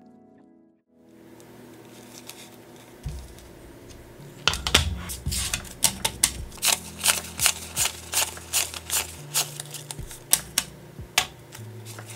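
Paper banknotes handled and counted by hand: crisp snaps and rustles as bills are flicked and fanned, about three sharp snaps a second from a few seconds in. Background music fades out at the very start.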